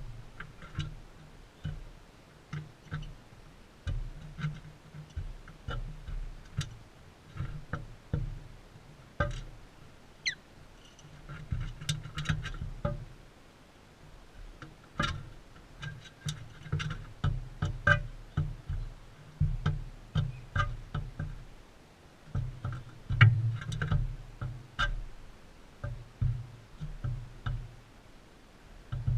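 Irregular taps and knocks of birds pecking and cracking seed on a feeder close to the camera's microphone, with one short rising chirp about ten seconds in.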